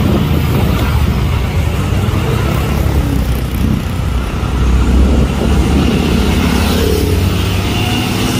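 Concrete mixer truck's diesel engine running as it drives slowly in busy street traffic, with motorcycle and car engines around it, a steady low rumble throughout.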